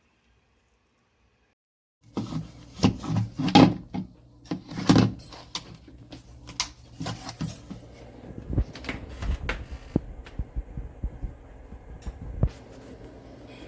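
Handling noise: a quick run of clicks, knocks and rattles, loudest in the first few seconds, over a low steady hum. It starts suddenly about two seconds in.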